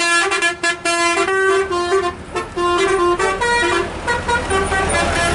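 Basuri musical 'telolet' bus horn playing a rapid melody of short stepped notes, phrase after phrase.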